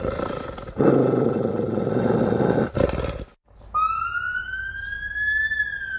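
A rough, noisy sound for about three seconds, then after a brief gap a single sustained electronic tone with overtones that slowly rises in pitch and then falls: the closing logo sting.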